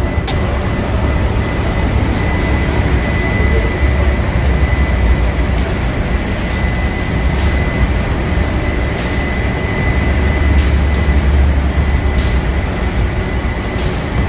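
Steady, loud ship engine-room machinery noise: a deep continuous drone with a thin high whine held throughout.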